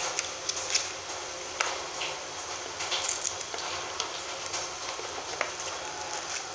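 Handling noise of unboxing a phone: paper leaflets and a plastic-sleeved phone being shuffled and set down on a stone counter, giving scattered light clicks and taps over a steady hiss.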